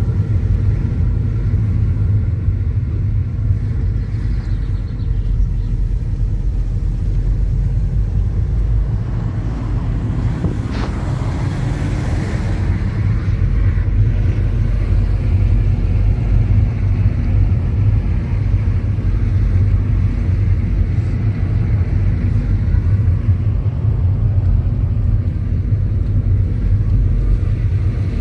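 Steady low rumble of a car driving along a road, with a brief louder rush of noise around ten to thirteen seconds in.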